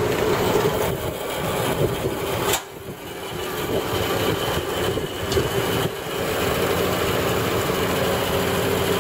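Jet 14-inch vertical band saw running after being switched on: its 1-horsepower three-phase motor, belt drive and blade wheels make a steady hum with a held mid-pitched tone. About two and a half seconds in there is a sharp click, and the sound dips and then builds back up to a steady run.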